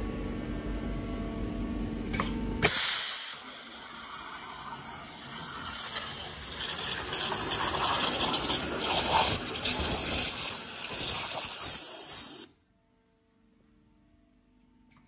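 CNC waterjet cutting machine: a steady low machine hum, then about three seconds in the high-pressure jet comes on with a sudden loud hiss and spray of water as it cuts into the plate. The hiss stops abruptly near the end, leaving near silence.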